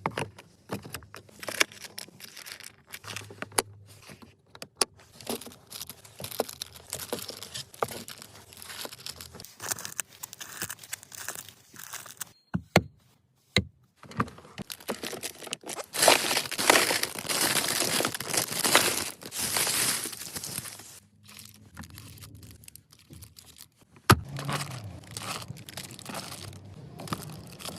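Rustling and crinkling handling noise with many small clicks. A louder, denser stretch of rustling comes about two-thirds of the way through.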